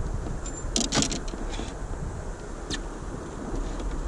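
Steady wind rumble on the microphone and water moving along an inflatable pontoon boat, with a few sharp clicks and knocks about a second in and another near three seconds.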